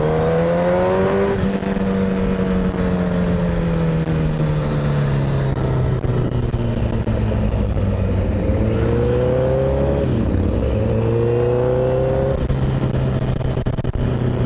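Motorcycle engine under way, its pitch rising under acceleration and falling as the throttle eases several times, with a sudden drop about ten seconds in, over steady wind rush.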